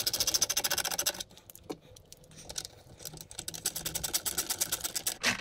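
Hand screwdriver driving the nylon hinge fasteners of a Dometic 310 toilet seat assembly, giving rapid, even clicking. The clicking comes in two runs: one about a second long, then a longer one after a short pause.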